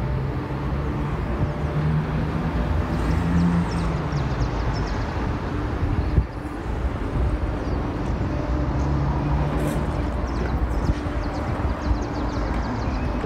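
Outdoor city ambience of road traffic: a steady low rumble, with a vehicle engine hum swelling and fading about two to four seconds in and again around nine seconds in.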